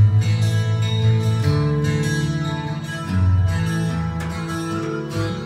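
Guitar-led rock music from an FM radio broadcast playing over hi-fi stereo loudspeakers in the room, with a steady, prominent bass line.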